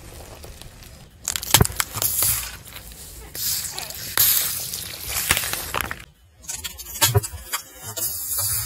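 A car tyre crushing plastic bottles filled with coloured liquid: crunching and several sharp cracks as the plastic gives way, with wet splatter as the liquid squirts out.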